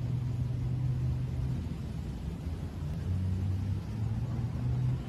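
Low rumble with a faint low hum that shifts in pitch a few times.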